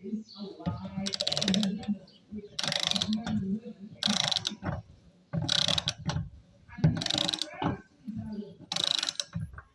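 Torque wrench ratcheting the engine's flywheel nut down: about six back-and-forth strokes, each a short run of rapid pawl clicks.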